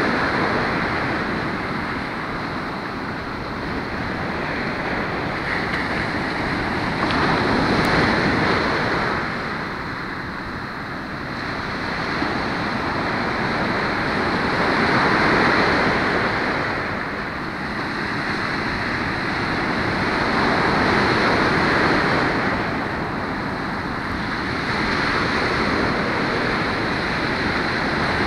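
Ocean surf breaking on a sandy beach: a steady rush of water that swells and fades as each wave breaks and washes up the sand, about every five to seven seconds.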